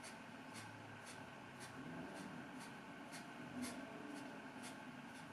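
Kapalbhati (breath of fire) breathing: short, forceful exhalations through the nose, about two a second in a steady rhythm, faint.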